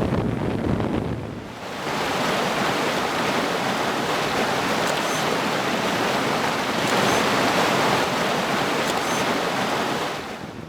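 Steady rush of running water, coming in about two seconds in and cutting off abruptly near the end.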